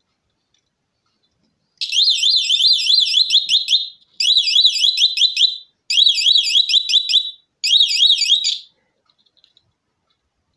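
Small electronic buzzer sounding a loud, fast-warbling alarm-like tone in four bursts of a couple of seconds each, with brief gaps between them.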